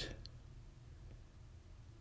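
Near silence: faint room tone between spoken sentences.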